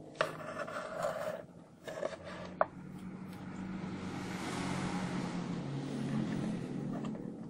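Handling noise of a small circuit board and its wires being fitted into an MDF speaker box: rubbing and scraping against the wood, with two sharp clicks in the first three seconds.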